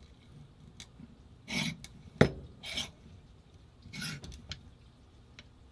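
Parts of an Angel LCD paintball marker being worked by hand: three short scraping rubs, with one sharp click a little over two seconds in.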